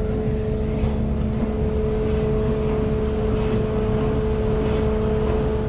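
Steady mechanical hum of running kitchen equipment: a constant tone over a low rumble, with faint light clatter now and then.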